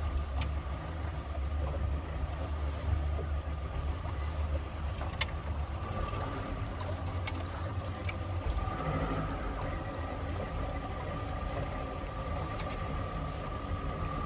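A 1977 motorboat's engine running steadily: a low rumble with a thin steady whine above it.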